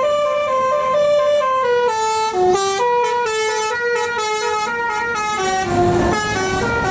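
Bus telolet basuri horn playing a quick, stepping melody of clear, flute-like notes. The melody stops near the end and a rush of passing-vehicle noise takes over.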